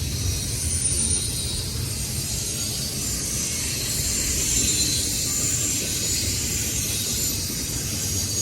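CN intermodal freight train's cars rolling past on the rails: a steady low rumble of wheels with a high-pitched hiss over it.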